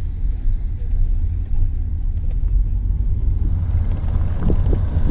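Loud, steady low rumble, with a few irregular knocks near the end.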